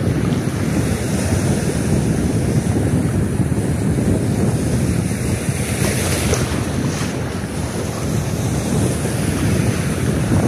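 Steady wind noise on the microphone over choppy sea waves washing against the shore.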